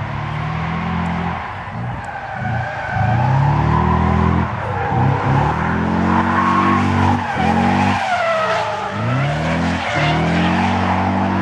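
Drift car sliding sideways on asphalt. The engine revs up and falls back several times as the throttle is worked, and the tyres squeal with a wavering pitch through the slide.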